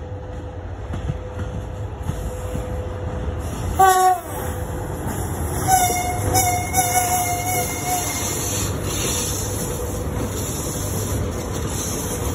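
VL80S AC electric locomotive with its freight train passing at close range, a steady running rumble throughout. A short, loud horn blast comes about four seconds in, and a second, longer wavering horn sounds from about six to eight seconds.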